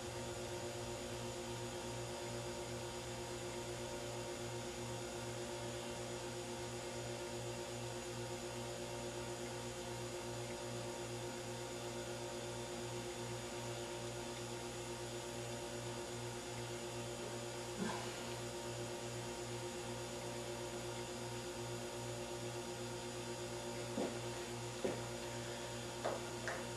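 Steady electrical hum made of several fixed tones, with a few brief faint taps about two-thirds of the way through and near the end.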